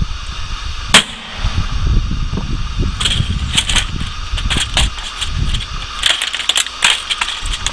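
A screwdriver working a screw out of an old plastic computer keyboard case, with handling knocks and rattles: one sharp click about a second in, then a run of irregular clicks from about three seconds in.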